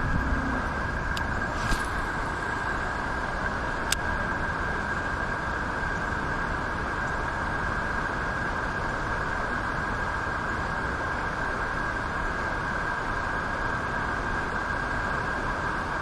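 Steady rush of moving river water, an even unbroken noise, with a few faint clicks in the first few seconds.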